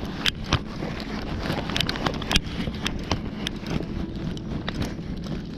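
Irregular sharp clicks and knocks over a steady low rumble of wind on the microphone.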